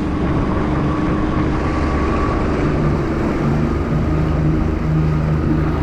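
Boat motor running steadily under way, a continuous drone with a steady hum in it.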